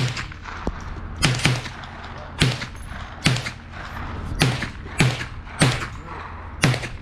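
A 5.56 rifle firing about eight shots at an uneven pace, each a sharp crack with a short ringing tail. Some shots come in quick pairs.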